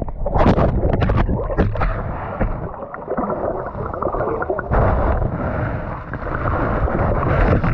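Muffled underwater sound picked up through an action camera's waterproof housing: water sloshing and bubbling, with a few sharp knocks in the first two seconds.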